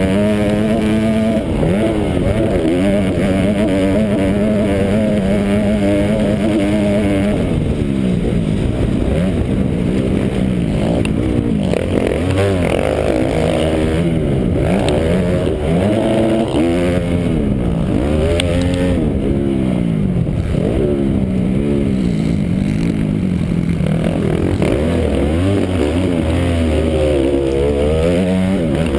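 Motocross dirt bike engine heard up close from the rider's own bike, revving hard and repeatedly dropping off and climbing again in pitch as it is ridden through the track's corners and straights.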